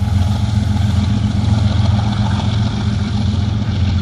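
Diesel freight train passing: a steady low locomotive engine drone over continuous wheel-on-rail noise.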